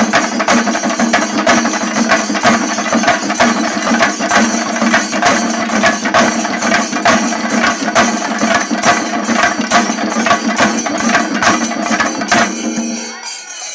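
Shinkari melam ensemble: many chenda drums beaten fast and loud with sticks, with brass cymbals ringing over them. The playing stops abruptly about a second before the end.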